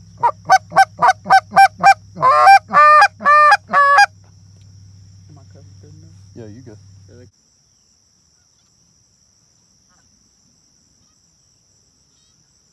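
Goose call blown hard by a hunter to lure an approaching flock: a fast run of about eight short clucks, then three or four longer honks, stopping about four seconds in. A few fainter honks follow around six seconds.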